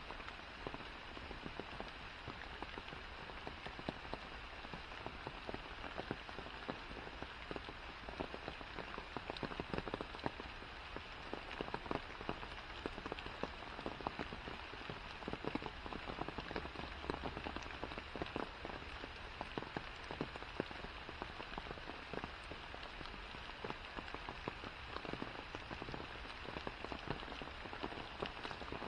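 Steady rain falling on forest foliage and a wet path: an even hiss with many close drops tapping irregularly.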